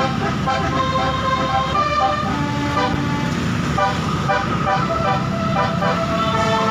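Basuri musical air horn on a tour bus playing a melody of short notes that step up and down in pitch, over a low rumble.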